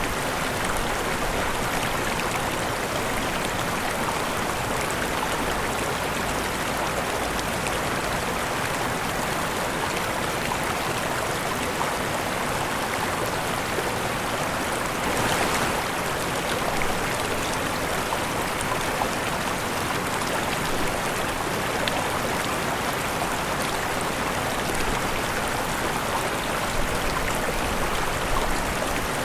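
Waterfall: a steady rush of falling water, swelling briefly about halfway through.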